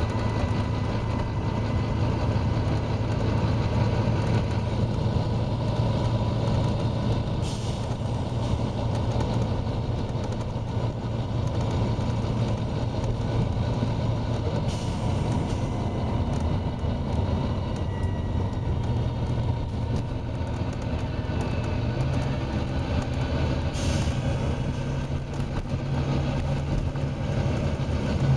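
Volvo B9TL double-decker bus's six-cylinder diesel engine running hard at a steady drone, its note stepping up about three-quarters of the way through. Three brief air hisses come over it, spaced several seconds apart.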